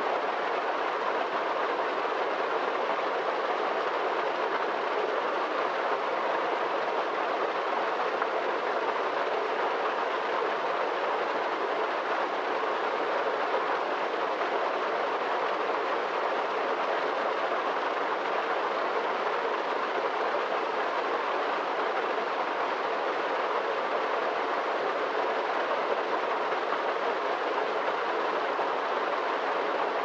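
Small waterfall pouring steadily over rock into a pool: an even, unbroken rush of falling water.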